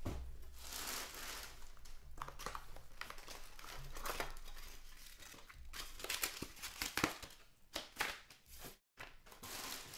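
Cardboard hockey card hobby box being opened by hand and its wrapped card packs pulled out, with rustling and crinkling of cardboard and pack wrappers. Several sharp taps come in the last few seconds.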